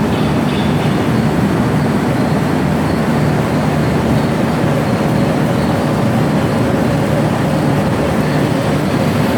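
Metal lathe running steadily while an iron pipe is worked for a spray nozzle: a loud, even machine noise with a faint steady whine.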